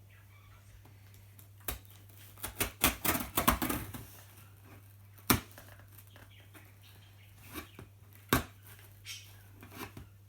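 Scissors cutting and scraping through the tape on a cardboard box: a busy run of cuts and scrapes a few seconds in, then a couple of sharp single clicks and lighter handling. A faint steady low hum lies underneath.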